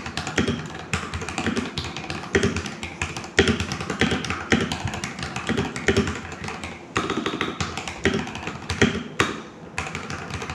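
Typing on an FL-Esports FL680SAM mechanical keyboard with stock Gateron Silver linear switches: a fast, continuous run of key clacks, some strikes louder than others.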